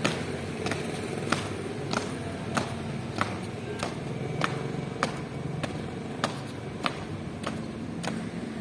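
Marching footsteps of a flag-raising squad: even, sharp treads on hard ground, about one step every 0.6 seconds.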